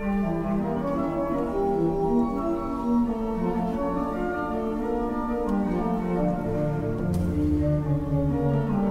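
Pipe organ playing a piece in several parts, with sustained notes moving against each other; deeper bass notes come in about seven seconds in.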